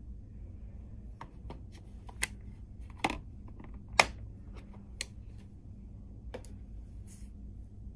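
A hand-held steel digital caliper being handled: a run of sharp, separate clicks and light taps of metal, the loudest about four seconds in, over a low steady hum.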